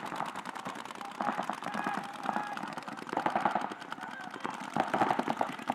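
Paintball markers firing rapid strings of shots across the field, a dense fast crackle of pops, with players shouting over it.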